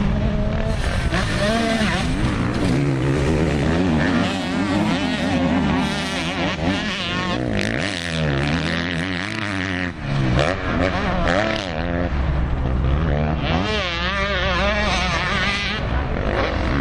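Several motocross bikes' engines revving hard and backing off as they ride the dirt track, their overlapping pitches rising and falling constantly.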